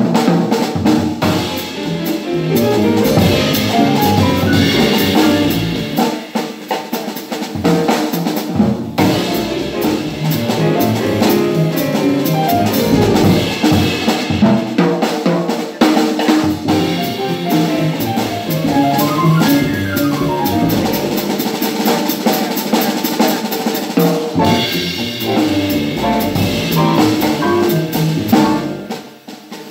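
Live jazz piano trio playing: grand piano, upright double bass and drum kit, with the drums prominent throughout.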